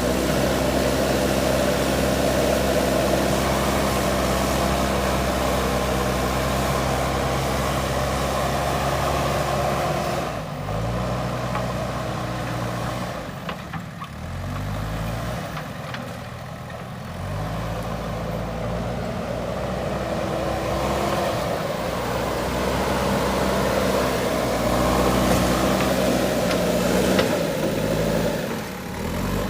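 Diesel engine of a JCB backhoe loader running hard, its revs held steady, then falling and climbing back several times in the middle before holding high again, as the machine works.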